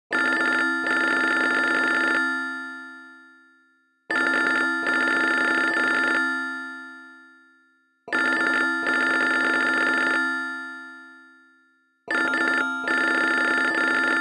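Siemens CF110 mobile phone playing a ringtone: a ring of several steady tones about two seconds long, broken briefly near its start, then fading away, repeated every four seconds, four times.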